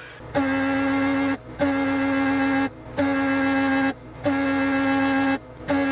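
A steady buzzy electronic tone, about a second long, repeating with short breaks roughly every 1.3 seconds.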